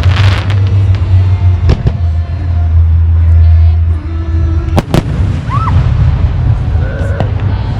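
Fireworks going off: sharp bangs one to three seconds apart, the first trailing a crackle, over a steady low rumble.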